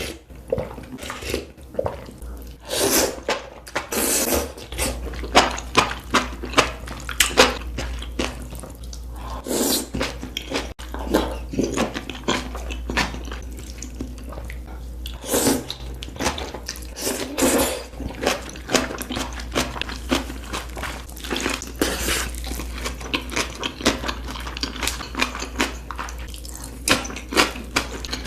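Close-miked wet chewing of hotpot food: many short, irregular squishy clicks and smacks, with a faint low hum underneath.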